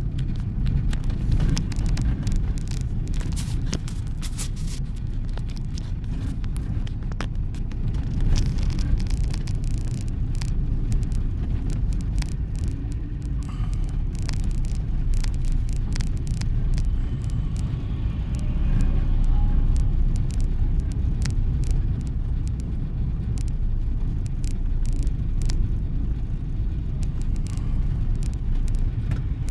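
A car driving over a rough road: a steady low rumble broken by frequent short knocks and rattles.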